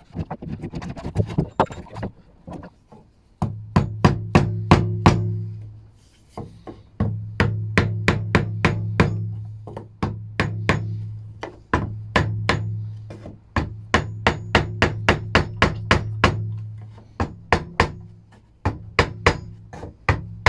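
Hammer knocking on a wooden block against the slats of a sapele frame, tapping the joints square: many sharp taps, often several a second, in runs with short pauses. A steady low hum comes and goes underneath.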